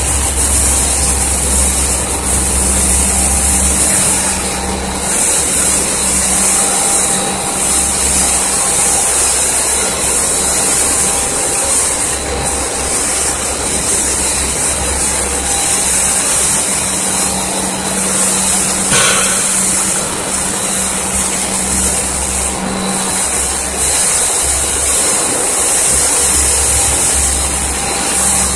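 Snack-food extrusion line machinery running: a steady, loud whir and hiss of electric motors and conveying equipment with a low hum.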